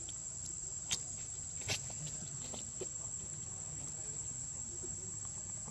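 Steady, high-pitched insect drone, a single unbroken tone, with two faint clicks about a second in and just after.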